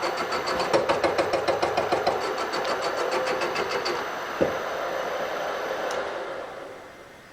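A shop machine tool running with a rapid, even chatter of ticks, which stops about four seconds in. After a single knock it runs on steadily, then spins down near the end.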